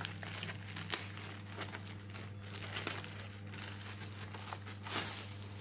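Clear plastic protective film crinkling and rustling as it is peeled off a laptop, in irregular crackles with a louder rustle about five seconds in, over a steady low hum.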